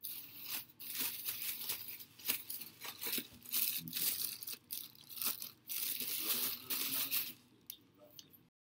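Hands squeezing, pinching and pulling apart a lump of moist pottery clay: an irregular run of crackling, rustling squelches that cuts off abruptly near the end.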